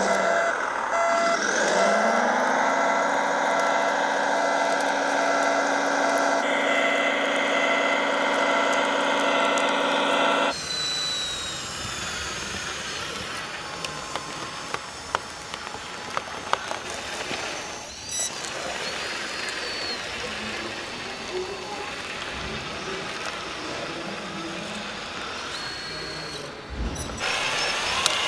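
Radio-controlled Liebherr crawler dozer model running with a loud, steady droning tone that rises in pitch about two seconds in and then holds. About ten seconds in it cuts to a quieter mix of whirring and scattered clicks from a radio-controlled John Deere 9RX quad-track tractor model working over dirt.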